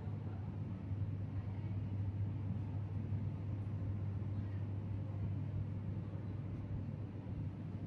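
Steady low hum and rumble of background ambience, with no clear events.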